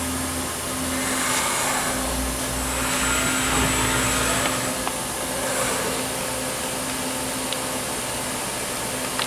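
CNC vertical mill running a slow-feed boring cut, enlarging a BMW M5 cam carrier's cam follower bores: a steady machine hum with a constant tone and hiss, the hiss and a low rumble swelling louder from about a second in to about six seconds in.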